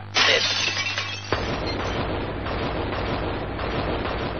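Car-crash sound effect of a 4x4 ramming parked cars: a sudden crash, then a second impact about a second later and a long run of crashing metal and shattering glass, a pile-up of many cars.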